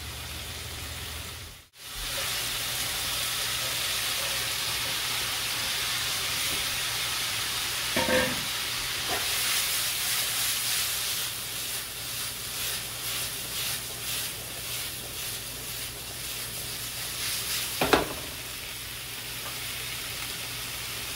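Shrimp and diced bell peppers sizzling in a frying pan, a steady hiss. It cuts out for a moment near the start, and there are two brief knocks, about eight seconds in and near the end.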